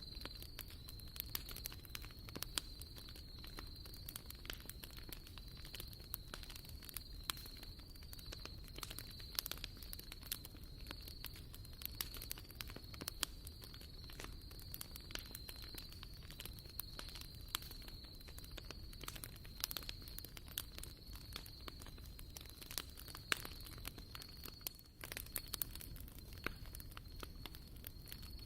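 Wood fire crackling, with frequent irregular sharp pops and snaps over a low rumble. A steady, thin high-pitched whine runs underneath.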